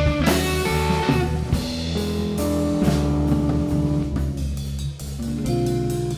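Live blues band playing an instrumental passage: electric guitar through a Divided By 13 RPB 19/37 valve amp, drum kit, bass and keyboard, with a cymbal crash just after the start.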